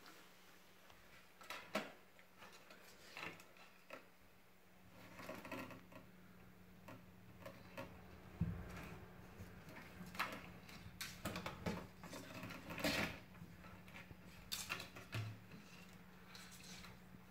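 Green iguana's claws clicking and scraping on bare wooden floorboards as it crawls and shifts its feet: faint, irregular ticks and scratches that come more often in the second half.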